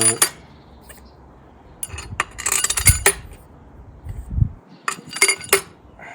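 Steel engine studs clinking against each other and against metal engine parts as they are picked up and set in place. The clinks come in short clusters: at the start, about two to three seconds in, and again around five seconds.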